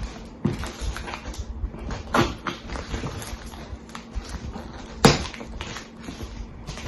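A large taped cardboard shipping box being handled and picked at: irregular rustling, scraping and small knocks, with one sharp knock about five seconds in.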